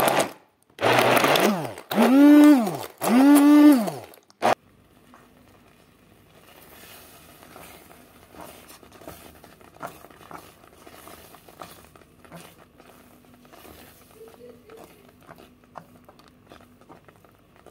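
Immersion blender whirring in thick jam in three short bursts, the motor's pitch rising and falling with each press, then a click. After that, the thick watermelon rind jam bubbling in the pan with faint, irregular pops and crackles.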